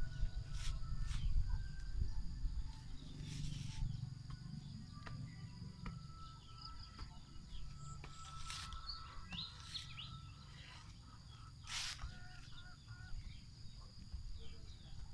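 Digging in damp clay soil: a few dull knocks and scrapes as earth is struck and scooped out of a hole, over a steady high whine and scattered bird chirps.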